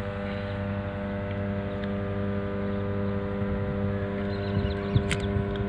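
Steady electrical hum of 33/11 kV substation equipment: a deep drone with a stack of higher overtones. A sharp click sounds about five seconds in.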